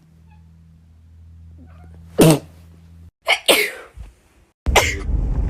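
A run of sharp sneezes: one about two seconds in, two in quick succession about a second later, and another near the end.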